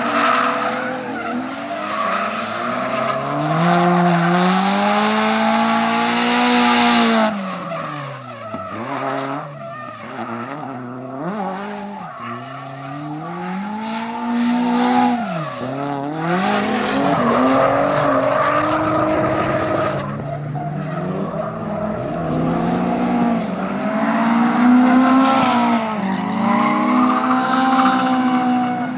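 Drift car engine revving up and falling off again and again as it is driven through slides, with tyres squealing and skidding. The squeal is loudest near the start, about midway and near the end, and there is a quieter spell with lower revs about a third of the way in.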